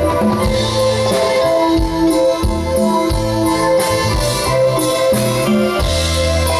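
A live band playing an instrumental passage: held melody notes over a moving bass line, with drum hits and no singing.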